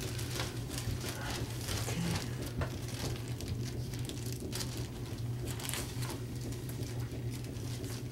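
Paper cards and leaflets being handled: light rustling and small scattered taps, over a steady low hum.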